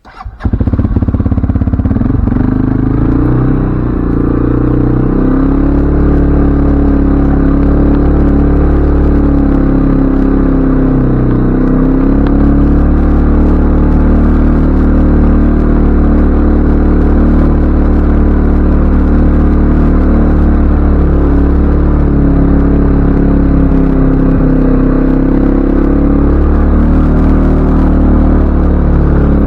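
CFMoto ATV engine running loudly and steadily, its pitch wavering slightly with the throttle; it comes in abruptly at the start.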